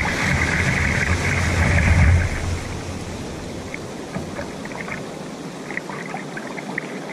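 Ocean surf washing in around the legs and then draining back. It is loudest for about the first two seconds, then eases to a softer hiss of receding foam with scattered small ticks.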